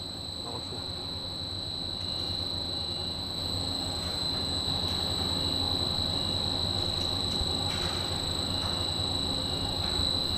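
Pet chew extruder running steadily as it pushes out a twisted chew rope: a constant low hum with a steady high whine over it, growing slowly louder.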